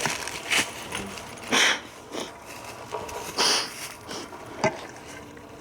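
Footsteps crunching and rustling through dry fallen leaves, roughly one step a second.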